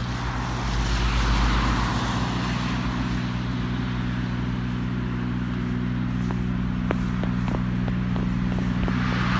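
Snowplough and salt-spreading truck running on the street: a steady heavy engine drone with a rushing noise that swells about a second in, and a few light clicks near the end.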